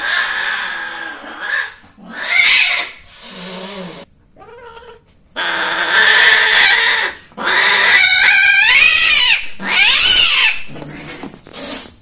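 Longhaired cats caterwauling during mating: a string of long, loud yowls that waver up and down in pitch, with a low growl about three and a half seconds in and a short cry near the end.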